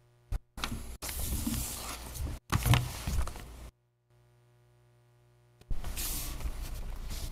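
Rustling and handling noises close to a microphone, with sharp knocks about a second in and near three seconds, as someone settles at a pulpit. The sound cuts to dead silence for about two seconds in the middle, then the rustling resumes.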